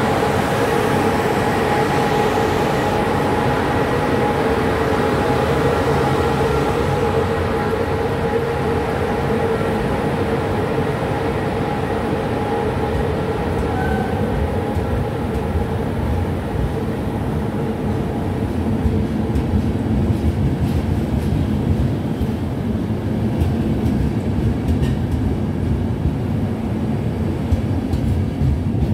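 Class 060-EA electric locomotive pulling a train out of the station. A steady hum of several tones fades over the first several seconds, while the rumble of the wheels on the track grows louder in the second half.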